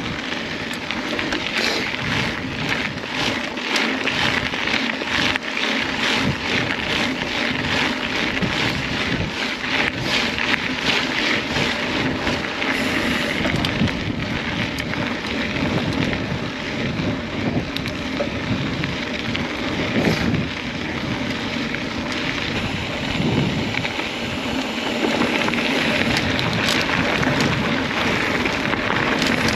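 Mountain bike rolling over a rough dirt trail, with steady tyre noise and many quick rattles and clicks from the bike over bumps. Wind rushes on the microphone throughout.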